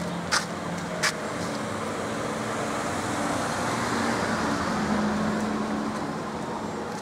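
Road traffic: a car and a motor scooter driving past. The engine and tyre noise builds to its loudest about four to five seconds in. Two sharp clicks come in the first second.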